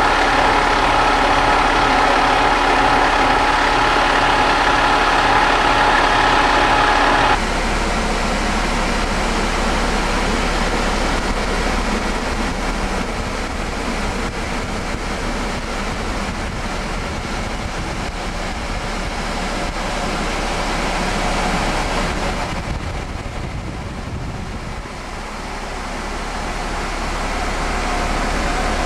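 Diesel engine of a parked fire-engine pumper idling steadily with a faint steady whine over it. About seven seconds in the sound changes abruptly to a duller, more even rumble.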